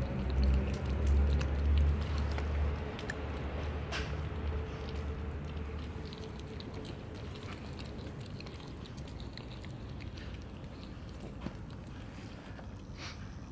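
A mother cat and her kittens chewing wet food from a plastic tub, with many small, wet, clicking smacks of eating scattered throughout. A low rumble is loudest over the first few seconds and fades out about six seconds in.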